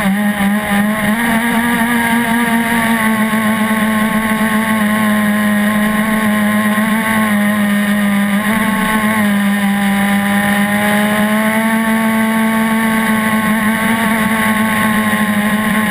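Gas engine of an RC catamaran boat running steadily at high speed, its pitch wavering slightly and dipping briefly about eight seconds in.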